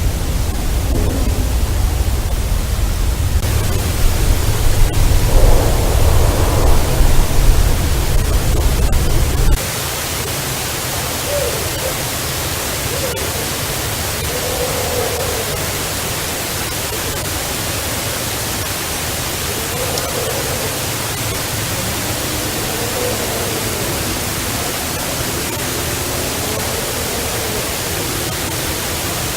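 Heavily amplified outdoor recording full of hiss, with a deep rumble that cuts out abruptly about a third of the way in. Through the noise come several faint, drawn-out calls that waver up and down in pitch: unidentified vocalizations.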